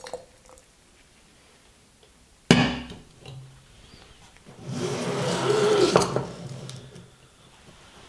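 A metal gooseneck kettle set down with a sharp clack on a tile trivet about two and a half seconds in, then a scraping rush lasting a second and a half as the small methylated-spirits burner is slid across the table under the glass siphon bowl.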